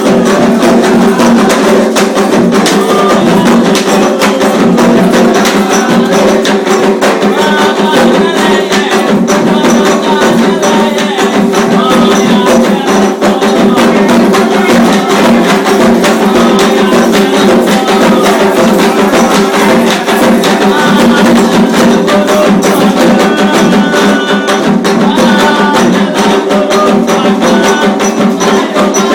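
Afro-Brazilian ceremonial hand drumming with a sharp clacking percussion part, loud and continuous with a dense, steady beat.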